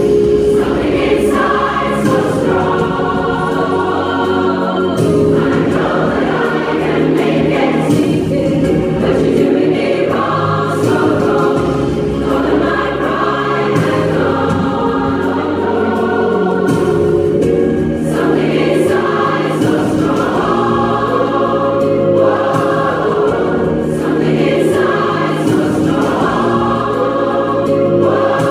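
A large rock choir, mostly women's voices, singing together in full voice.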